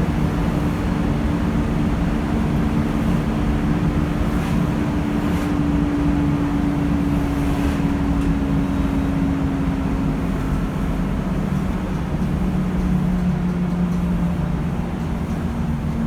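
Volvo B10BLE bus running on the road: steady engine and driveline noise with a low whine that slides down in pitch about eleven seconds in.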